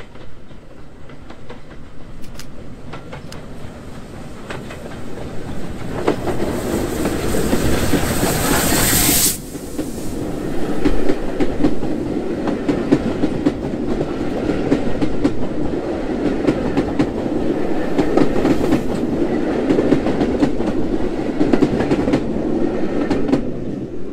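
Heritage steam train passing under a bridge. The locomotive's noise builds to a loud peak and drops off suddenly about nine seconds in, followed by the steady clickety-clack of the carriage wheels rolling over the rail joints.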